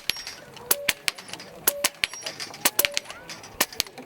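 PCP air rifles firing fast shots, each a sharp crack. Steel targets being hit ring briefly with a short metallic tone, about once a second.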